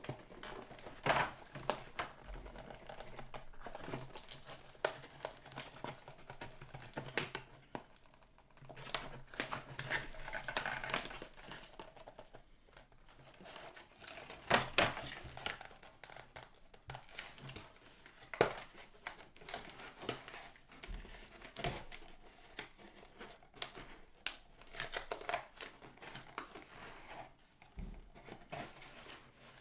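Toy car packaging being opened by hand: plastic and cardboard crinkling and rustling, with scattered sharp clicks and knocks.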